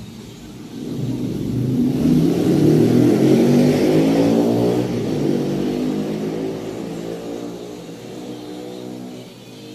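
A motor vehicle passing by, its engine growing louder over the first few seconds, peaking about three to four seconds in, then slowly fading away.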